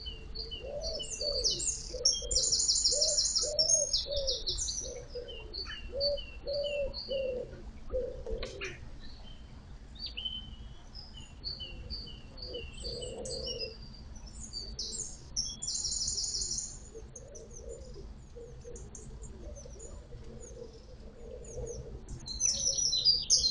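Birdsong from several birds: high, fast trills and strings of repeated thin notes, loudest about two seconds in, around fifteen seconds in and at the very end, over a low, repeated cooing call. A faint low churn of water from the electric narrowboat's propeller lies underneath.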